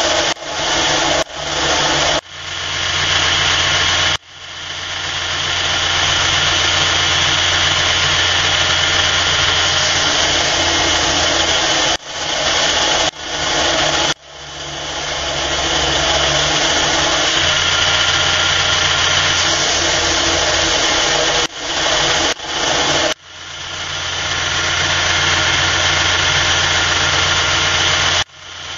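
Burr King belt grinder running steadily while a steel knife blade is ground against the belt at the platen, a steady motor hum under a hiss of abrasive on steel. The sound dips suddenly and swells back several times.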